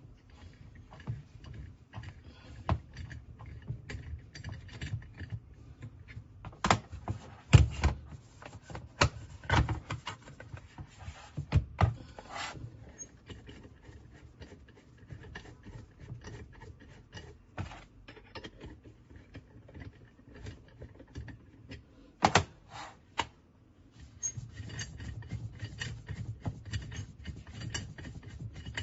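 Hand-tightening a stainless steel wire EDM vise on a round workpiece with a wrench: scattered metal clicks, knocks and rubbing from the parts and the tool. There are louder knocks several times between about seven and twelve seconds in and again around twenty-two seconds, and a denser run of rubbing and clicking near the end.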